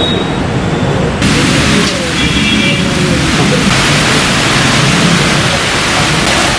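Heavy monsoon rain falling, a steady loud hiss that comes in strongly about a second in, over a low rumble of road traffic. A brief high beeping tone, like a vehicle horn, sounds about two seconds in.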